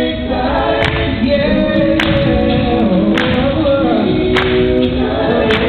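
Male a cappella group singing live through microphones and a PA: several voices in close harmony, with a sharp percussive hit about once a second keeping the beat.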